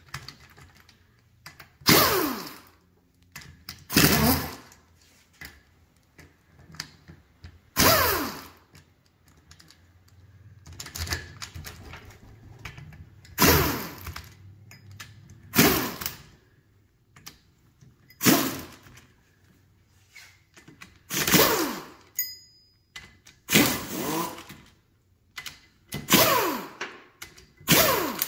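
Pneumatic impact wrench backing out the 5 mm Allen bolts on a Subaru EJ25 cylinder head's cam cap. It runs in about a dozen short bursts, roughly two seconds apart, each with a whine that glides in pitch.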